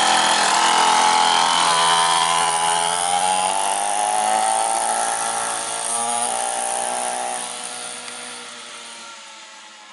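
49cc two-stroke mini dirt bike engine buzzing at high revs as it rides off, fading steadily over the last few seconds as the bike pulls away.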